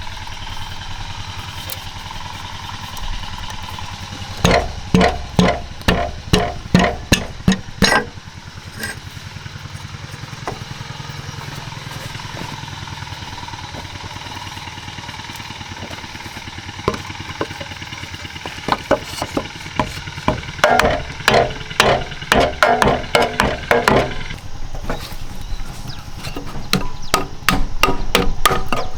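Runs of quick, ringing strikes on metal, about two to three blows a second, starting and stopping several times over a steady mechanical hum.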